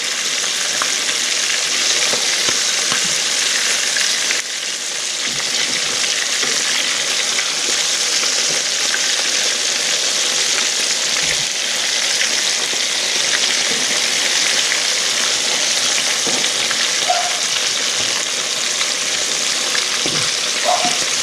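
Small bream and crappie frying in hot grease: a steady sizzle that does not let up.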